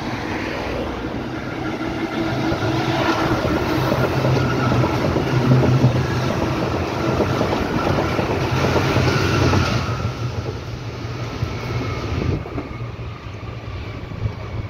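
Berlin U-Bahn train passing close by on open track, wheels running on the rails with a steady whine. It builds up over the first few seconds, is loudest in the middle, and drops away after about twelve seconds.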